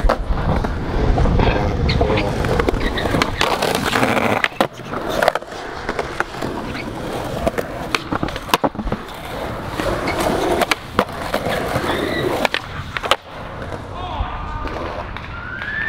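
Skateboard rolling on hard ground with a steady grinding rumble, broken by several sharp wooden clacks of the board popping and landing as a kickflip is done and ridden away.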